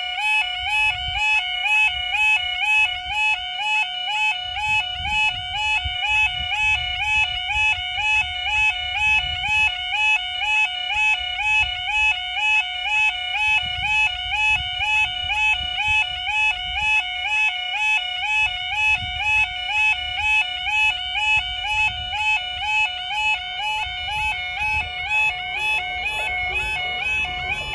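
UK level crossing audible warning alarm (yodalarm) sounding continuously, a loud, high, warbling tone that wavers up and down in pitch at a steady rapid rate while the barriers are down. Near the end the diesel engine of an approaching Colas Rail track tamper rumbles in beneath it.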